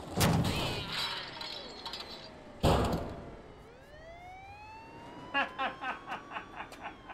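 Two loud crashes, the first with a clattering tail, then a police siren wail that starts and rises in pitch, with a rapid pulsing over it for the last second or two.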